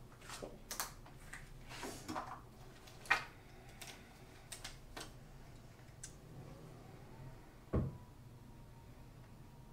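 Makeup items being handled and set down: a series of light clicks and taps, a sharper click about three seconds in, and a louder knock near the end.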